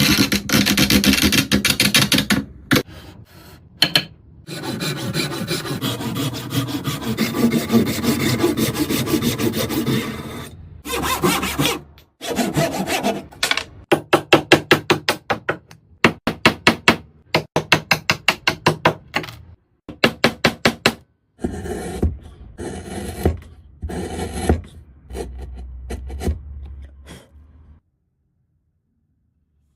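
Hand tool rasping and sawing into wood in a series of short clips that start and stop abruptly. Midway there is a run of quick, even strokes, about two to three a second, and the sound drops out about two seconds before the end.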